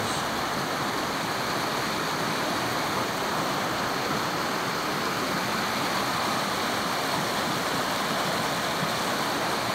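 Fast, shallow creek rushing over rocks: a steady, even rush of water.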